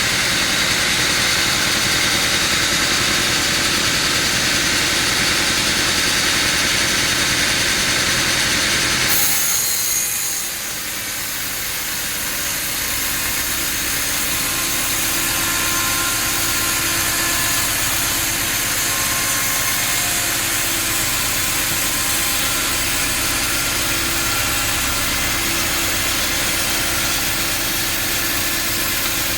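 Sawmill machinery running steadily. About nine seconds in the sound briefly dips and changes character, then carries on steadily.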